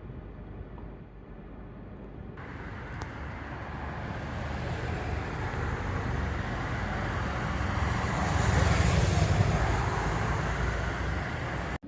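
A road vehicle passing by, its noise swelling to a peak about nine seconds in and then fading.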